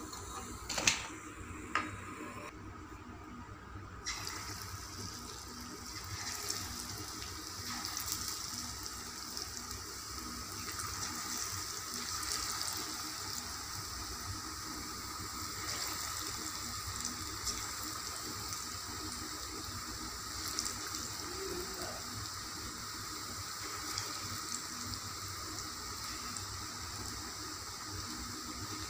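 Chayote pakoda fritters deep-frying in hot oil in an iron kadai: a steady sizzle full of small crackles. There are two sharp knocks near the start as the fried fritters are lifted out with a slotted spoon.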